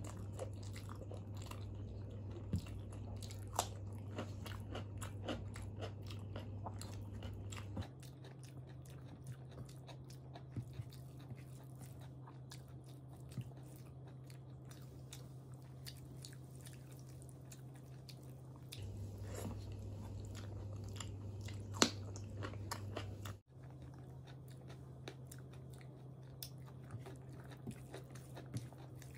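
Close-miked chewing and mouth sounds of someone eating rice and dal with their hand, with scattered small clicks and smacks. A steady low hum underneath changes pitch a few times, at about 8, 19 and 23 seconds in, and drops out briefly at the last change.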